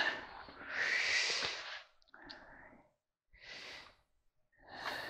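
A man's long sigh, then three short, faint breaths.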